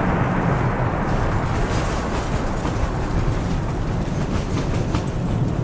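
Airliner cabin noise in turbulence: a steady, heavy rumble of airflow and engines, with the cabin fittings rattling and knocking in quick irregular clicks.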